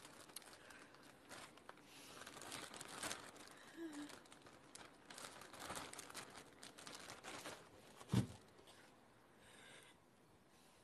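Faint rustling of bedding and breathy sobbing from a woman crying face down on a bed, with a single dull thump about eight seconds in.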